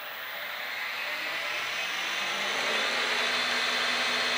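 Colt 350 midi wood lathe running up under its frequency converter's slow start, motor and spinning spindle whirring steadily louder as the speed climbs from about 500 to over 3,300 rpm.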